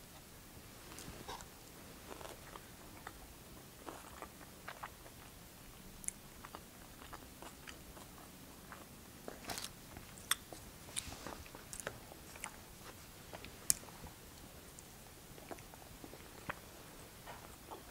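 Faint, close-up chewing and mouth sounds of someone eating a burrito, with irregular soft smacks and light clicks of a plastic fork and knife working in a foam takeout box.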